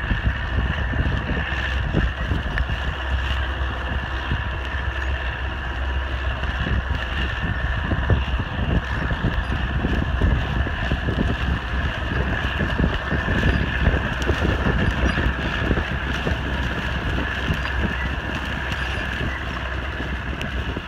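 Allis-Chalmers 6080 tractor's diesel engine running steadily under load, pulling a moldboard plow through the soil, with wind buffeting the microphone.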